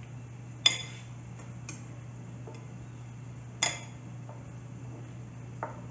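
Metal fork clinking against a ceramic bowl while turning chicken in egg wash: two sharp, ringing clinks, one under a second in and one about three and a half seconds in, with a few lighter taps between.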